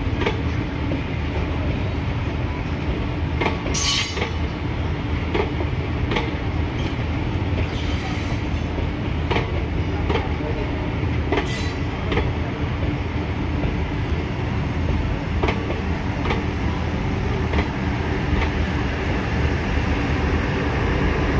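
Indian Railways passenger train of blue coaches running past on the next track: a steady rumble of wheels on rail with repeated clicks at the rail joints and a few brief high-pitched wheel squeals, about 4, 8 and 11 seconds in.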